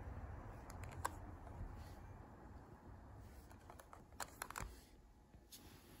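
Faint handling noise from a phone being moved while filming, with a few small sharp clicks: one about a second in and a quick cluster around four and a half seconds.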